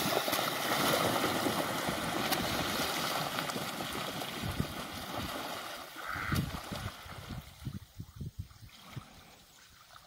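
A flock of Danish geese and Pekin ducks splashing and flapping their wings across a pond. The splashing is loud at first and fades over several seconds as the flock moves off.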